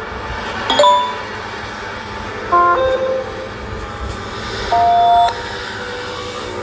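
Samsung Galaxy A55 alert tones playing from the phone's speaker: three short, bright electronic chimes, about a second in, at two and a half seconds and near five seconds, over a steady low background rumble.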